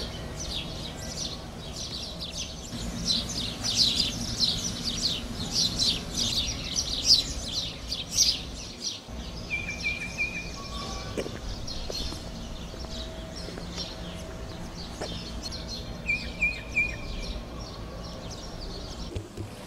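Birds chirping outdoors: a busy run of many short, quick calls in the first half, then two brief trills later on. A steady low hum runs underneath.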